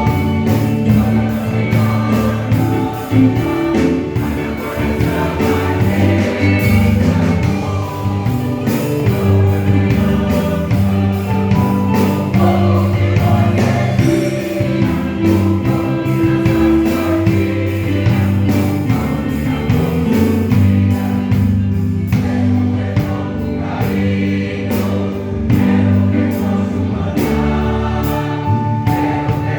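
Gospel choir singing in Portuguese with instrumental accompaniment and a steady percussive beat.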